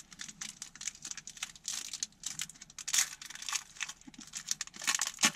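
Foil wrapper of a Pokémon booster pack crinkling and tearing as it is opened by hand: a dense run of quick crackles, loudest near the end.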